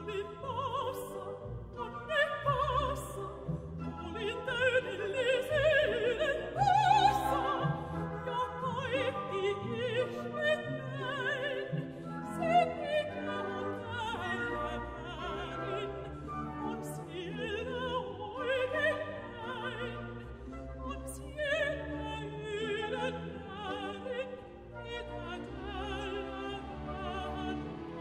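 Mezzo-soprano singing with vibrato over a symphony orchestra, strings prominent, in a slow modern classical song setting.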